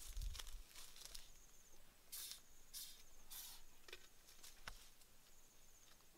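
Faint, brief rustles of leaves and twigs as the branches of a small tree are pushed aside and handled, with a couple of small snaps. A faint, high chirping comes and goes a few times behind them.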